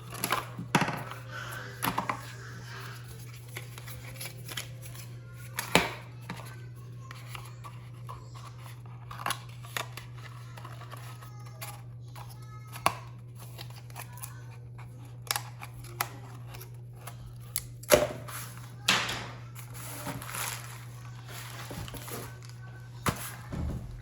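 Product packaging being handled and opened by hand: scattered clicks and taps, with a longer rustle about nineteen seconds in, over a steady low hum.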